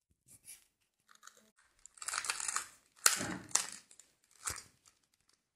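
3x3 Rubik's Cube being turned by hand: a run of short plastic clicking and scraping layer turns in uneven bursts, the loudest about three seconds in.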